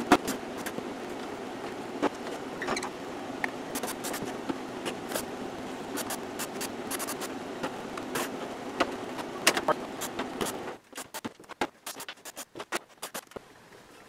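Clicks and clacks of a plastic dehumidifier housing and its screws being handled while it is taken apart, over a steady hum that cuts off abruptly about eleven seconds in. After that, only scattered clicks remain.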